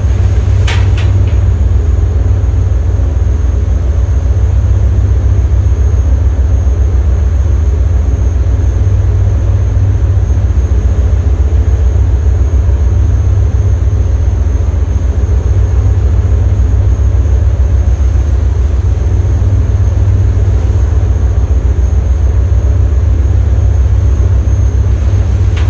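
Fishing boat's inboard engine running steadily at a constant speed, loud and low-pitched with a fast even throb. A brief high squeak sounds about a second in.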